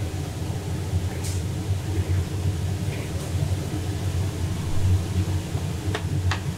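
Wooden paddle stirring and scraping a dry mix of sliced nuts and purple rice around a large steel wok, with a few sharp scrapes or clinks against the metal, about a second in and twice near the end. A steady low rumble runs underneath throughout.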